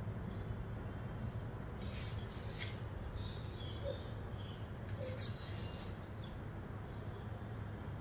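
Birds chirping in two short high-pitched bursts, about two and five seconds in, over a steady low hum.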